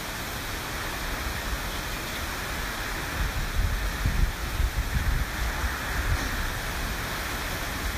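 Hurricane wind and rain making a steady rushing noise, with gusts buffeting the microphone, strongest about three and a half to five seconds in.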